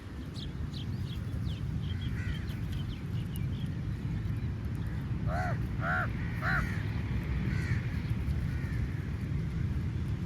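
Crows cawing: fainter calls near the start, then a run of three caws in quick succession around the middle, with thin high chirps early on and a steady low rumble underneath.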